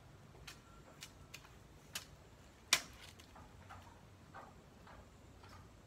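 Scattered light clicks and taps from hands working at the ground among plants, with one sharper, louder snap nearly three seconds in.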